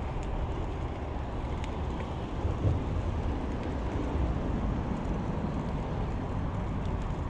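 Wind buffeting the microphone of a handlebar-mounted camera on a moving bicycle, a steady low rumble over the hum of tyres on asphalt. A brief louder bump about two and a half seconds in comes as the bike rolls over a speed hump.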